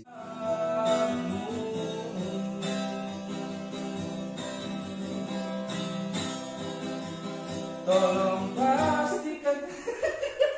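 Acoustic guitar being strummed, with a man's voice singing along about eight seconds in; the playing breaks off shortly before the end.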